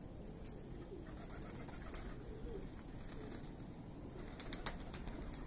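Domestic pigeons cooing softly, with a few sharp clicks about four and a half seconds in.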